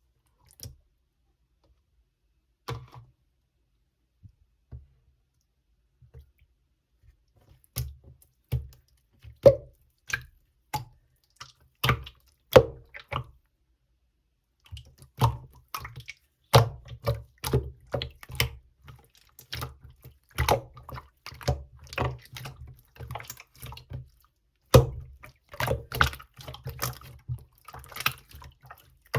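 Clear slime being squished and worked by hand, giving sticky clicks and small wet pops. They come only now and then at first and thick and fast from about halfway on.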